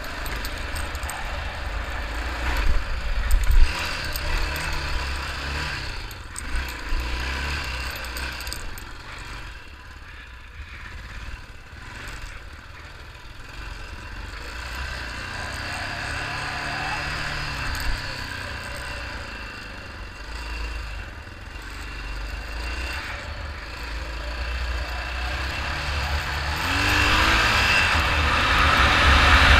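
Yamaha 600 cc dirt bike's single-cylinder engine running on a rough dirt track, with wind buffeting the microphone and a few knocks from bumps early on. The engine eases off in the middle, then picks up and rises in pitch near the end as the bike accelerates.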